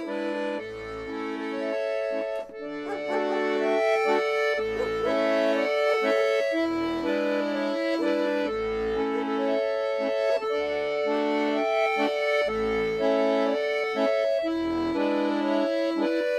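Folk-style accordion tune: held chords that change every half second or so, over recurring low bass notes.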